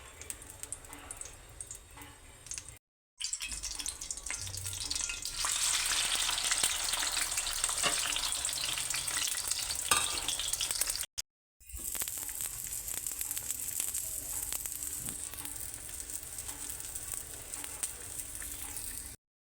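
Food sizzling as it fries in a hot pan, with light clicks and scrapes of a stirring spatula. The sizzle is quiet at first, strongest in the middle, and cuts out abruptly twice.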